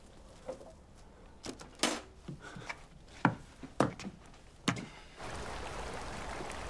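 Several scattered wooden knocks and creaks, then from about five seconds in a shallow stream running steadily over stones.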